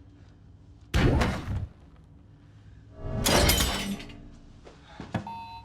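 Anime-style fight sound effects: a heavy impact hit about a second in, then a loud crash of shattering glass lasting about a second. A short electronic tone starts at the very end.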